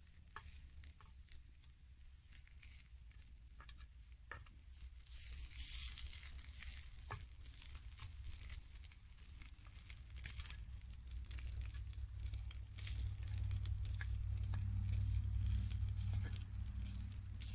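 Meat sizzling in a skillet over an open wood fire, with scattered sharp crackles and clicks as wooden stick tongs turn the pieces. A low rumble grows louder in the second half.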